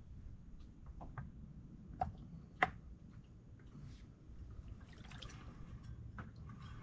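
Small clicks and taps of a propeller and its adapter being handled and fitted onto an outboard motor's propeller shaft, with a couple of sharper clicks between two and three seconds in. Shallow water laps and drips around the lower unit and the wader's legs.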